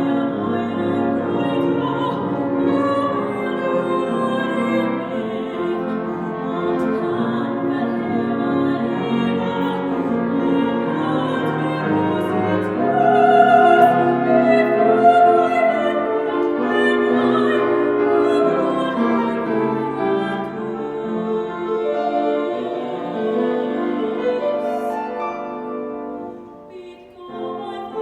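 Classical singer performing a Welsh art song with piano accompaniment, holding long notes with vibrato; the sound drops briefly near the end, between phrases.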